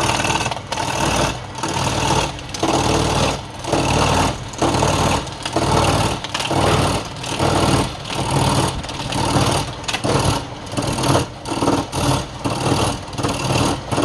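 Woodworking machine running with a steady motor hum while cutting into wood in repeated noisy surges, about one or two a second and quicker near the end.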